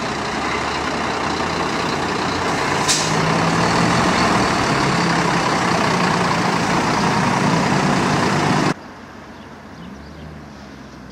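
Heavy military truck's diesel engine running loudly as it drives past, with a short sharp hiss about three seconds in. The engine noise gives way abruptly to much quieter background near the end.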